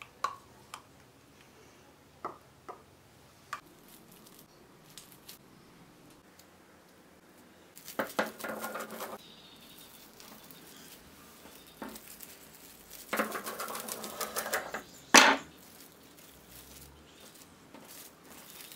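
Plastic cling film crinkling and rustling in two spells as it is folded and rolled into tubes, with one sharp crackle near the end. A few light clicks of a spatula on a ceramic bowl in the first few seconds.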